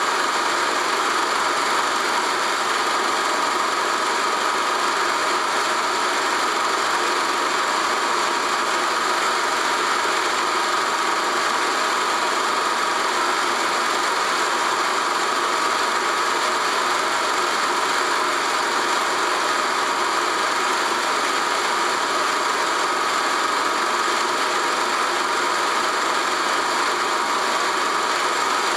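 Steady mechanical whirr of a home-movie film projector running.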